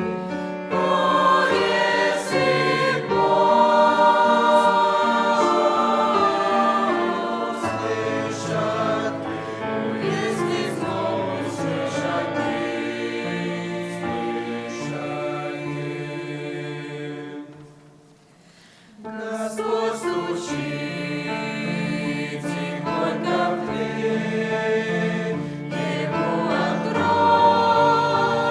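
Church choir singing a hymn in sustained chords; the singing breaks off for about a second and a half, about two-thirds of the way through, then resumes.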